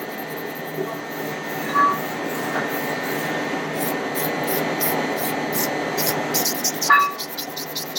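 Kitchen knife being stroked back and forth on a whetstone: a run of short, regular grinding hisses that quickens near the end, with a couple of brief squeaks.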